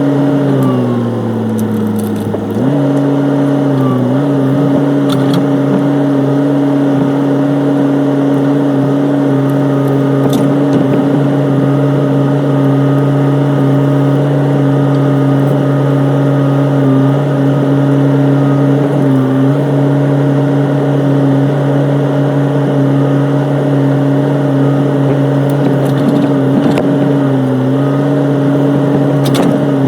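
Excavator's diesel engine running at a steady high speed. About half a second in it pulls down under load and recovers about two seconds later, then dips briefly a few more times as the hydraulics work.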